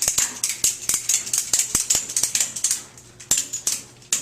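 Tie-down ratchet strap being cranked tight: a run of sharp ratchet clicks at about four a second, with a short pause about three seconds in.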